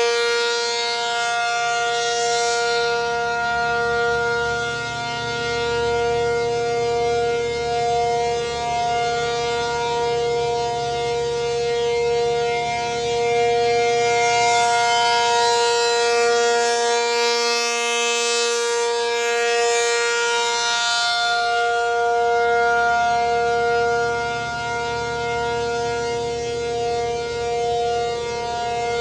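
American Signal T-135 dual-tone electromechanical siren sounding the steady Alert signal, holding one two-note chord with no rise or fall in pitch. Its loudness swells and fades as the siren turns on its rotator.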